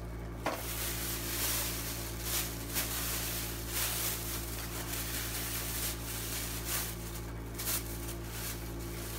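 A bag rustling and crinkling in uneven spurts as an item is handled and pulled out of it.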